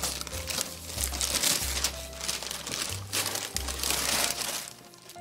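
Shiny metallic gift-wrapping paper being torn and crumpled off a present box, crinkling in repeated bursts that die down near the end. Background music with a low bass line plays underneath.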